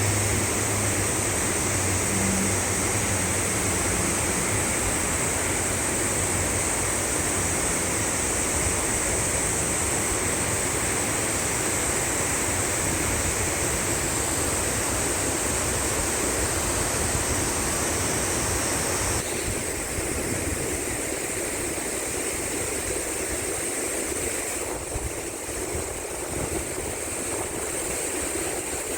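Mountain valley stream rushing over rocks, a steady roar of water. About two-thirds of the way through the high hiss drops away suddenly and the water sounds softer.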